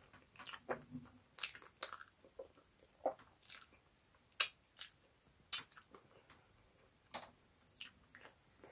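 A person eating boiled yam and tomato stew by hand: wet chewing with irregular sharp lip smacks and mouth clicks, including licking sauce off the fingers. The two loudest smacks come about four and a half and five and a half seconds in.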